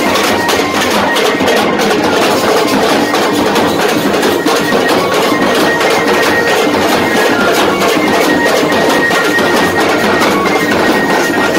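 A group of large shoulder-slung double-headed drums beaten rapidly with sticks in a fast, driving rhythm, with short high held notes from a reedy wind instrument over the drumming.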